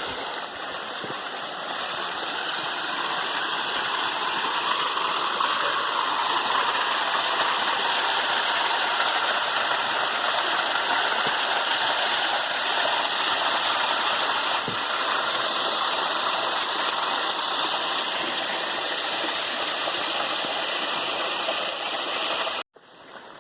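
Spring-fed mountain stream rushing over rocks, a steady noise of running water that grows louder over the first several seconds, then cuts off suddenly near the end.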